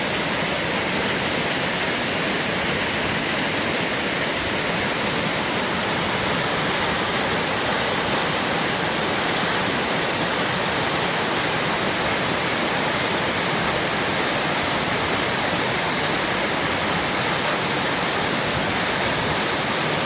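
Steady rushing roar of a waterfall about 20 metres high with a large volume of water, even and unbroken throughout.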